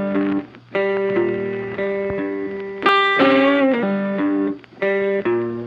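Blues guitar music: an electric guitar playing short phrases with bent notes, broken by brief pauses.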